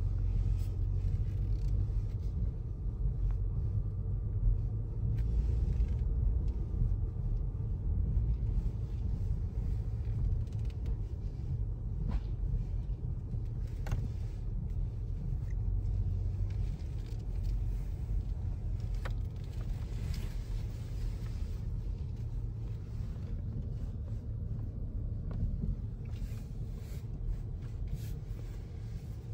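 Steady low rumble of a car driving slowly, heard from inside the cabin, with a few faint ticks.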